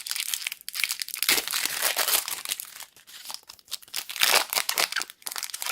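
Foil wrapper of a Pokémon Sun & Moon booster pack being torn open and crinkled by hand, in bursts of crackling with short pauses.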